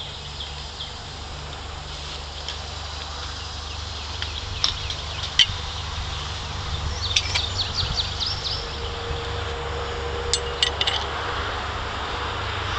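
Sharp metallic clicks and clinks from a hand-cranked Jake's wire tightener winding barbed wire: a few single clicks, then a quick run of about eight in a row, then a few more, over a steady low hum.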